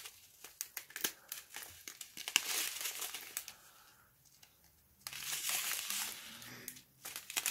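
Thin plastic zip-lock bags of round diamond-painting drills crinkling and crackling as the strip of bags is handled and turned. There is a short lull about four seconds in before the crinkling starts again.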